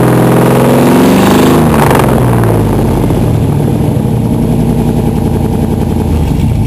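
Engine exhaust through a 3-inch pipe with a 4-inch ram-jet style tip, revved up for about a second and a half, then dropping back to a steady idle for the rest.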